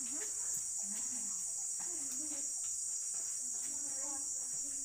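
Steady, high-pitched drone of insects shrilling without a break, with faint voices of people talking underneath.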